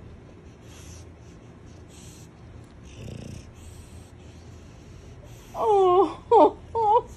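A bulldog breathing noisily and snuffling with wheezy snorts as it nuzzles and licks a kitten. About five and a half seconds in, three short high-pitched whining cries, each bending in pitch, are much louder than the snuffling.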